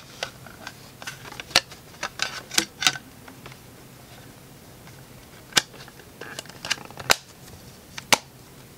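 A clear plastic protective case being pressed onto a phablet by hand: a series of sharp clicks and snaps as its edges are worked over the device, with light handling noise in between. A quieter stretch about three to five seconds in, then three more distinct snaps toward the end.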